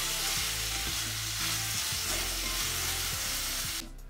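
Carrots and onions sizzling in a hot enamelled cast-iron pot as they are stirred with a wooden spatula. The frying starts to "sing". The sizzle cuts off suddenly just before the end.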